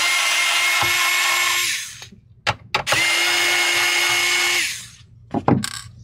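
Cordless electric screwdriver running twice, about two seconds each time, backing out the two screws that hold the metal plate over the RAM slots. Its motor gives a steady whine that fades as each run ends, and a few light clicks come between and after the runs.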